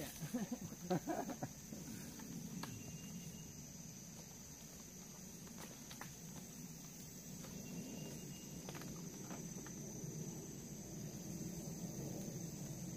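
Tropical forest ambience: a steady high insect drone with scattered light knocks and a brief call about a second in. A faint low rumble builds in the second half as an aircraft passes overhead.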